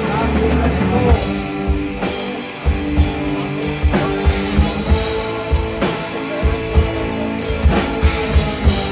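Live rock band playing: a drum kit keeps a steady beat under electric guitars.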